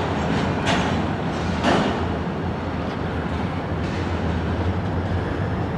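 Loaded intermodal container flatcars rolling slowly through a rail yard as they are shoved by switch engines: a steady low rumble with a few sharp clanks spread across the stretch.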